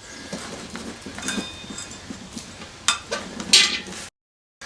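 Rubber inner tube being stuffed by hand into a motorcycle tire on its rim: rubbing and brief squeaks of rubber, light clicks and knocks, and a louder scrape a little after three seconds. The sound cuts out abruptly shortly before the end.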